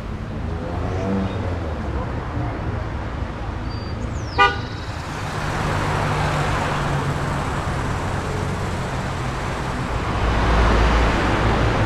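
Street traffic: engines running with a steady rumble, a short car-horn toot about four seconds in, and the traffic growing louder near the end.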